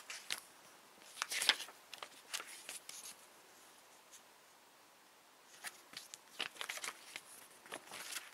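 Paper pages of a CD lyric booklet rustling and flicking as they are leafed through by hand, in two spells of quick rustles with a lull of about two seconds in the middle.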